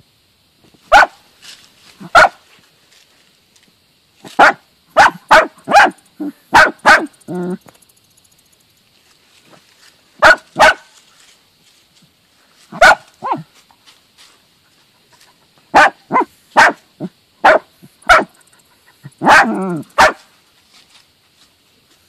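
Dachshunds barking excitedly at a mole's burrow as they hunt it: short, sharp yaps in irregular bursts, some in quick runs of three or four, with a longer, rougher bark near the end.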